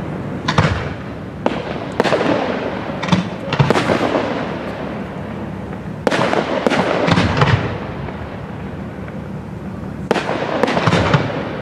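Fireworks display: clusters of sharp bangs from bursting shells, each bang trailing off in a long echo, with quieter gaps between the clusters.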